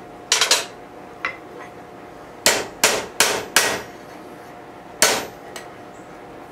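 Hammer blows driving a steel punch through hot, thinned steel over an anvil's pritchel hole, each strike sharp with a brief metallic ring. There are two quick blows near the start, a run of four about a third of a second apart midway, and one more near the end.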